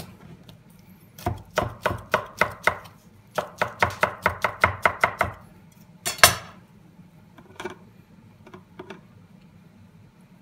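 Kitchen knife chopping ham on a cutting board: two quick runs of sharp knocks at about four to five a second, then a single louder knock about six seconds in and a few faint taps.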